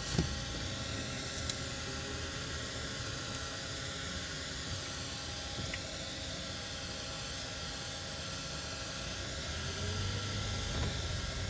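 Steady running and road noise of a vehicle rolling slowly, with a low rumble and a faint steady hum. There is one brief thump just after the start.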